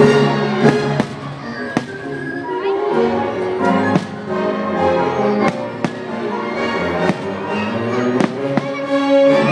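Orchestral show music with strings, punctuated by about ten sharp fireworks bangs spread through it.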